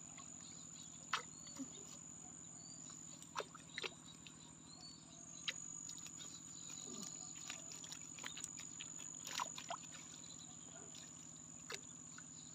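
Steady high-pitched trill of crickets, with a low steady hum underneath and a few scattered faint clicks and knocks.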